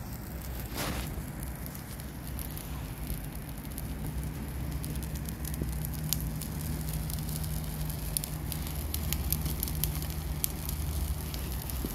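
Dry brush burning in a metal drum fire pit: a steady low rush of flame with sharp crackles and pops, which come thicker from a few seconds in.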